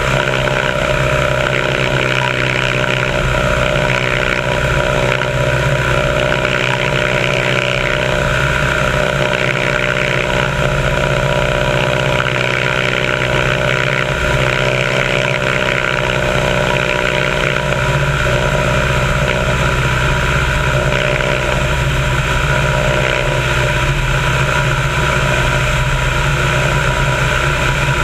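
A biplane's piston engine and propeller droning steadily in flight, with wind rushing past.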